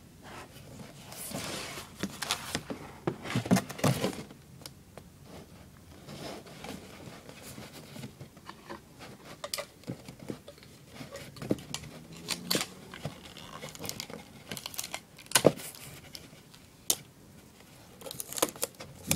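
Sticky tape being pulled off the roll and torn, with cereal-box cardboard rustling and tapping as the pieces are handled and taped together. One sharp knock comes about fifteen seconds in.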